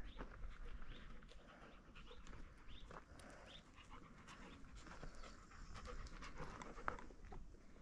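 A dog panting, faint.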